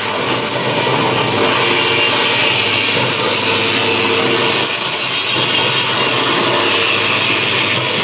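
Live harsh electronic noise music from a synthesizer-and-electronics rig: a dense, unbroken wall of noise, brightest high up, with a few faint held tones underneath.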